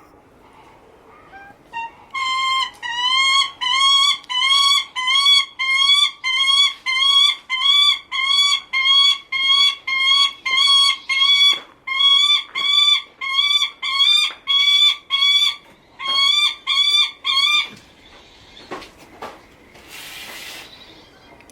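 Lanner falcon calling in a long run of about two dozen harsh, slightly rising notes, nearly two a second, then stopping. This is attention-calling directed at its keeper. A short burst of noise follows near the end.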